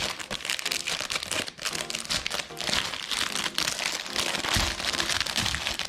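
Packaging crinkling and rustling as it is handled and worked open, in a continuous run of crackly rustles.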